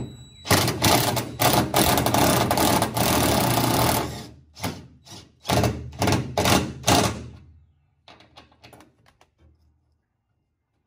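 Cordless DeWalt impact driver hammering on a seat-belt anchor bolt in a car body to break it loose. One long rattling run of about three and a half seconds is followed by several short bursts, and the driver stops about seven and a half seconds in.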